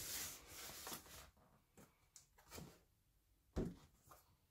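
A cardboard box scraping and rustling as it is slid and turned over on a wooden tabletop, followed by a few soft knocks as it is handled and set down, the loudest a thump about three and a half seconds in.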